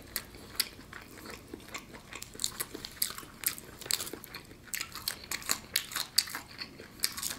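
Eating a crispy, sauce-coated fried chicken drumstick: chewing and biting with many quick, irregular crunches as the meat is pulled from the bone.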